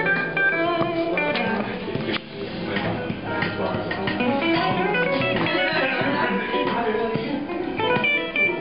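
Recorded music led by plucked guitar, playing back steadily, with a brief dip about two seconds in.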